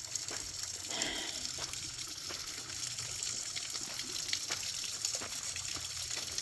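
Small waterfall running at a low flow, only one narrow side of it spilling: a steady hiss of falling water.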